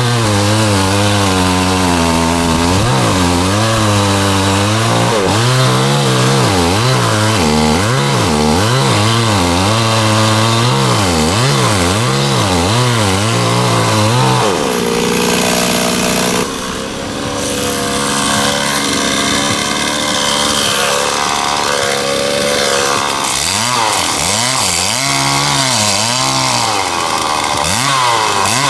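Stihl two-stroke chainsaw cutting into a tree trunk, its engine note rising and falling as it bogs under load and picks up again. About halfway through it settles to a steady note for several seconds, then rises and falls again near the end.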